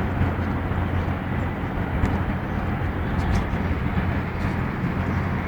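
Steady low rumble of machinery with a hiss above it, and a few faint ticks about two and three seconds in.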